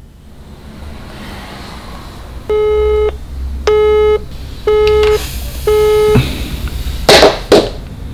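Phone busy signal: four evenly spaced beeps of one steady low tone, each about half a second long, meaning the call can't go through because the other line is busy. Near the end come two short, loud noisy bursts.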